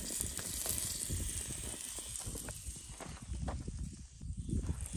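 Sausages sizzling on a portable camp grill, a steady hiss, with short low rumbles throughout.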